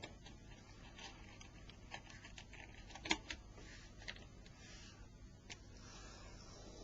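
Faint, scattered light clicks of a small pry tool on a mobile phone's plastic and metal parts as the camera module is pulled out, with one sharper click about three seconds in.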